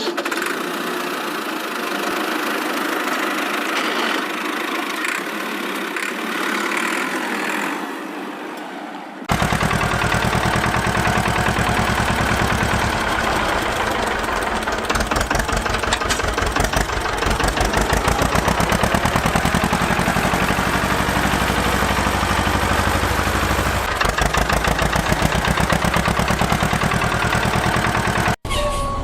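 Tractor engine running steadily. For the first nine or so seconds it sounds thin; then, after a sudden cut, it becomes louder and deeper with a fast, even putter.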